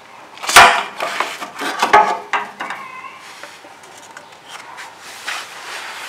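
Plastic defrost drain tube of a GE side-by-side refrigerator being worked loose and pulled down off the freezer drain: a sharp knock about half a second in and another about two seconds in, with plastic rubbing and scraping between and a brief squeak just after, then lighter handling.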